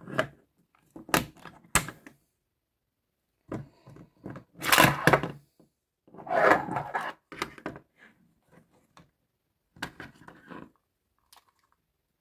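Hard plastic Transformers action figure being transformed by hand: joints and panels click and clack in several short bursts of handling noise with pauses between, the loudest about five seconds in.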